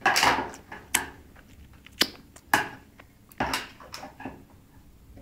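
A baby's plastic bowl and spoon clattering against a plastic high-chair tray: six sharp knocks and scrapes, about one a second.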